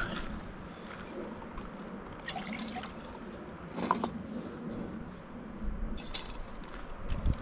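Water dripping and trickling into a metal camp cooking pot, with short metallic clinks as the pot is handled and set onto a small canister gas stove, the loudest about four seconds in.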